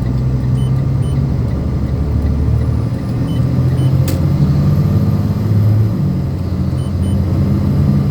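Freightliner dump truck's diesel engine running under way, heard from inside the cab; the engine note shifts about three seconds in and again a few seconds later. A single sharp click about four seconds in.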